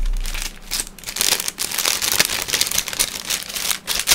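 Clear plastic packaging bag crinkling and rustling in the hands as a phone case inside it is pulled out of its box and handled: rapid, dense crackles with short pauses.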